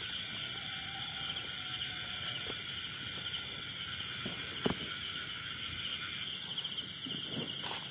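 Night chorus of crickets and other insects: steady, high-pitched trilling in several layered pitches. A few soft knocks come through, with one sharper knock a little past halfway.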